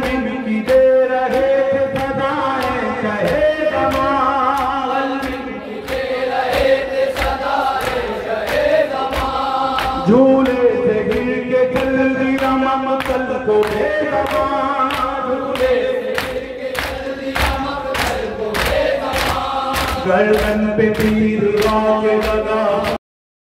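A male reciter sings a noha over a microphone with a group of men chanting along, over the steady slaps of hands striking chests in matam, about two a second. The sound cuts out abruptly just before the end.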